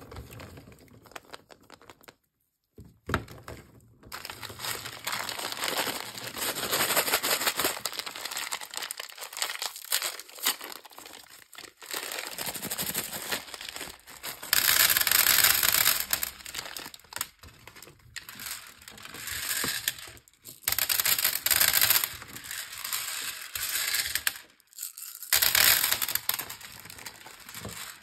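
Plastic candy wrappers crinkling and tearing as they are handled and opened, in irregular bursts with short pauses.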